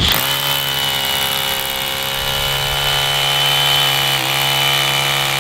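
DeWalt 20V cordless SDS rotary hammer drilling into a concrete block, its motor and hammer mechanism running at a steady pitch from the moment it starts. There is a brief wobble about four seconds in.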